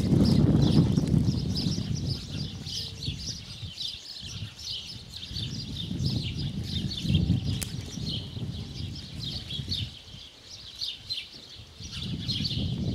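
Small birds twittering, a steady stream of short, quick falling chirps. A low rumble comes and goes underneath, strongest at the start and near the end.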